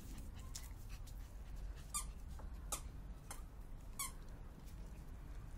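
Short, high squeaks during soft coated wheaten terrier puppy play, four of them about two-thirds of a second apart in the middle of the stretch.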